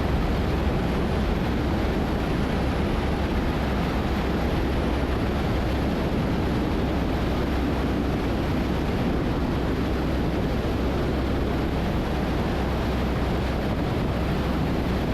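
Steady drone of a 1977 Cessna 172N's four-cylinder Lycoming engine and propeller in flight, mixed with airflow noise, as heard inside the cabin.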